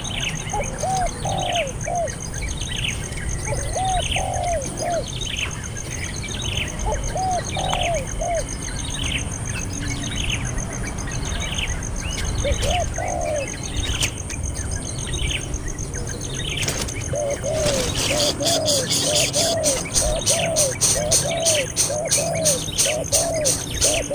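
Swiftlet calls: high falling chirps repeating at an even pace, about every 0.7 s, over lower warbling calls that come in short groups of three. After about two-thirds of the way through, the lower calls run on continuously and a rapid clicking rattle joins in.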